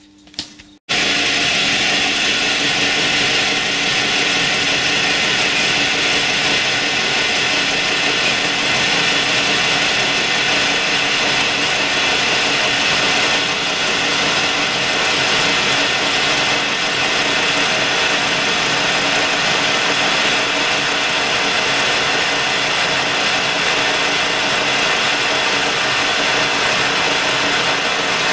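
Colchester metal lathe running in reverse, a steady mechanical whirr with a whine, while its turning tool cuts a 4-degree taper on the outside of the spinning metal workpiece. It starts abruptly about a second in.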